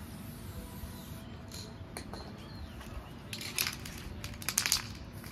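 Aerosol spray paint can hissing in short bursts as paint is sprayed onto a cotton hoodie, the strongest bursts in the second half.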